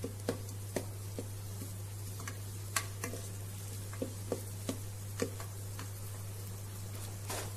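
Wooden spoon stirring sliced onions and ginger-garlic paste frying in the nonstick inner pot of a Geek Robocook electric cooker on sauté, with irregular sharp taps of the spoon against the pot over a faint sizzle. A steady low hum runs underneath.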